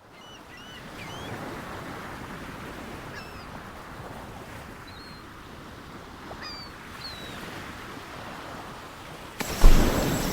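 Outdoor lake ambience: a steady wash of water and wind with short high bird chirps now and then. About nine and a half seconds in, a sudden much louder sound cuts in with a thump.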